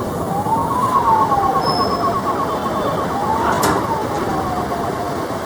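Emergency sirens sounding together: one does a slow wail, rising and falling in pitch about every two and a half seconds, while a second runs a fast warble for the first few seconds. Steady vehicle noise lies underneath, with a sharp click about three and a half seconds in.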